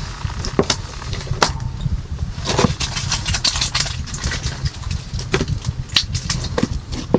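Wind rumbling on the microphone, with scattered sharp clicks and crunches of handling, a dense run of them from about two and a half to four seconds in.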